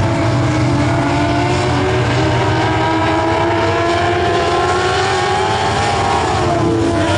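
Several dirt-track race car engines running at speed around the oval, their overlapping engine notes loud and steady, one note dropping in pitch near the end.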